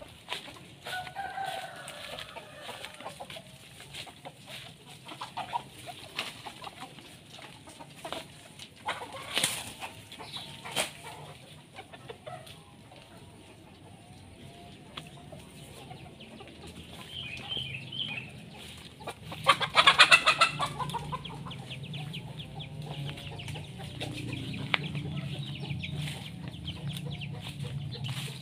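Free-range chickens clucking and calling, with a rooster among them, and a louder burst of calls about two-thirds of the way through.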